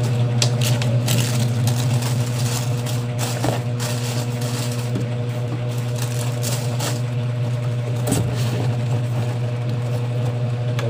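Tissue paper rustling and crinkling and a cardboard shoebox being handled, with scattered short clicks and crackles. Under it runs a steady low hum from a spinning ceiling fan.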